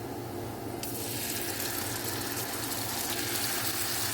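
Chicken and onions cooking in a pot on the stove, giving a steady hiss that turns brighter about a second in, over a low steady hum.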